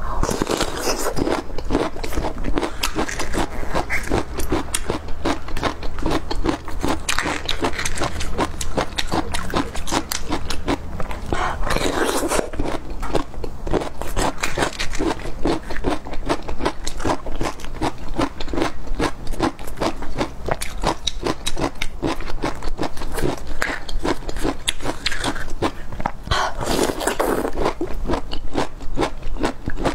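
Biting and chewing bamboo shoots, a steady run of crisp, wet crackles throughout, mixed with the fibrous shoots being torn apart by hand.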